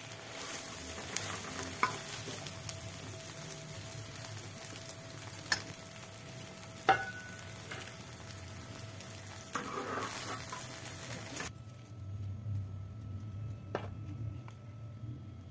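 Egg omelette sizzling as it fries on a flat griddle, with a metal spatula clicking and scraping against the griddle a few times. The sizzle cuts off suddenly about eleven seconds in, leaving a low hum and an odd click.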